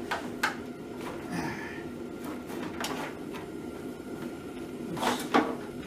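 Scattered small clicks and knocks of wire connectors being handled and pushed together while the four leads of a replacement ignition switch are connected.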